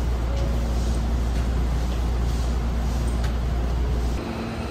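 Hankyu electric train running: a steady low rumble with a faint steady hum above it, the rumble dropping off abruptly about four seconds in.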